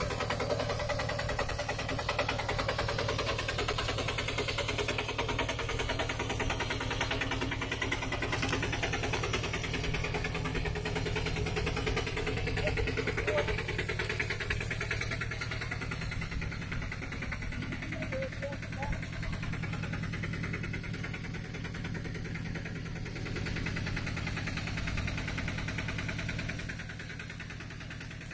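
Single-cylinder diesel engine of a two-wheel walking tractor running steadily as it hauls a wooden trailer through deep mud, dropping in level near the end.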